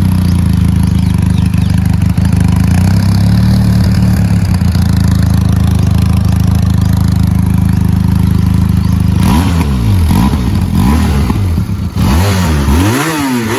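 Benelli TRK 502X's parallel-twin engine idling steadily through its stock silencer, then revved in several quick blips over the last few seconds.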